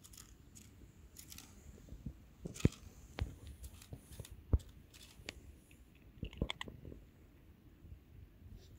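Scattered sharp clicks and taps, two louder ones near the middle and a quick run of clicks about two-thirds of the way through.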